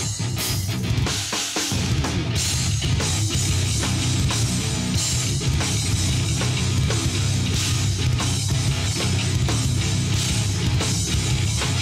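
Japanese metal band playing live: pounding drum kit with bass drum and snare, under distorted electric guitars. The low end thins out briefly about a second and a half in, then the full band comes back in.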